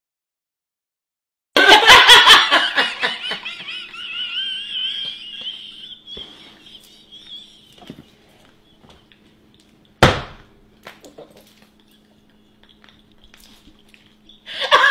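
A man's loud, high-pitched laughter, starting about a second and a half in and trailing off over several seconds. A sharp knock comes about ten seconds in, over a low steady hum.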